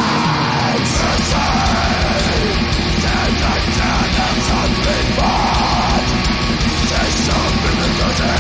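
Heavy metal song with yelled, harsh vocals over the band; the drums and bass come in full about a second in.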